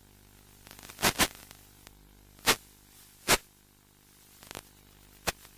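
Audio of an analog FPV video link: a steady faint hiss and hum broken by five sharp static crackles, two close together about a second in and the others spread through the rest.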